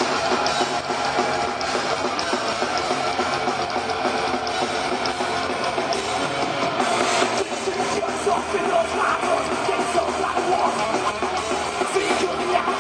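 Thrash metal band playing live: distorted electric guitars and a drum kit, loud and continuous.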